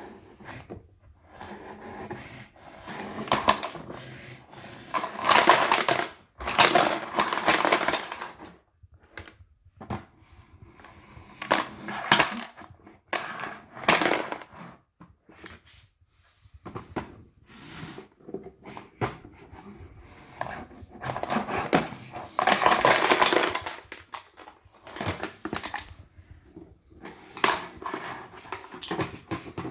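Loose plastic Lego bricks clattering and rattling in irregular bursts as the Lego 1666 brick vacuum sucks them up, with short quiet gaps between bursts.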